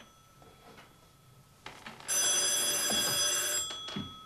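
Telephone bell ringing once for about a second and a half, starting about two seconds in, followed by a couple of soft knocks near the end.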